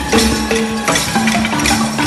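Live music for a Dagaaba bewa dance: dense, fast percussion strikes and rattling under short, repeated pitched notes.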